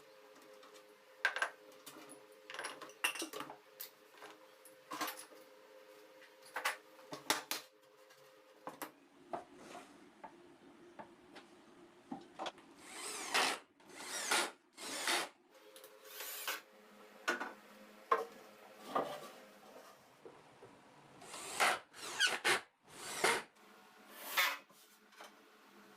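Hand work on wood: a series of irregular short knocks and clicks mixed with swelling scraping strokes, over a faint steady hum.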